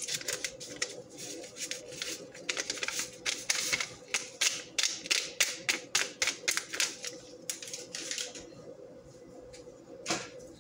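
A paper packet crinkling and crackling in the hands as it is opened and handled over a plastic bowl, a quick run of several crackles a second that dies away about eight seconds in, with one sharp click near the end.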